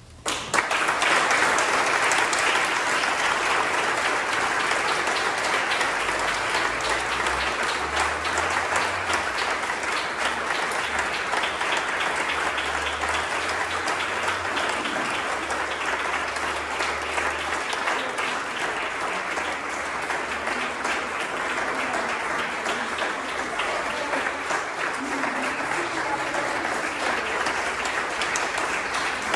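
Audience applause, breaking out suddenly just after the start and keeping up at an even level.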